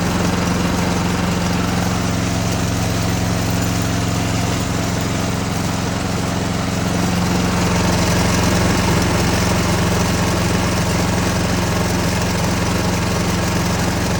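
John Deere walk-behind snowblower's small gasoline engine running steadily, while the repaired left/right chute control switch is being tested.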